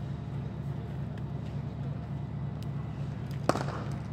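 A cricket bat striking a ball once, a single sharp crack about three and a half seconds in, over a steady low rumble.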